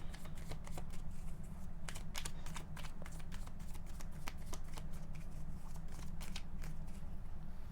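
Tarot cards being shuffled by hand: a rapid, irregular run of soft card flicks and riffles, over a steady low hum.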